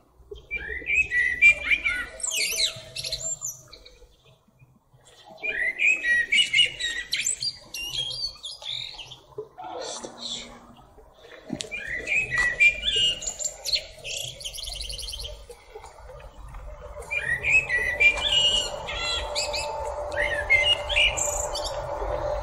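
Common blackbird singing: four phrases a few seconds apart, each a lower fluty warble that runs into a high, squeaky twitter.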